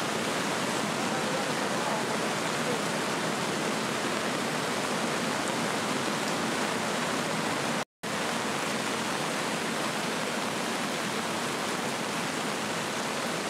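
The Kali Gandaki River in flood, its muddy torrent rushing with a steady, even sound of heavy water. The sound cuts out for a split second about eight seconds in.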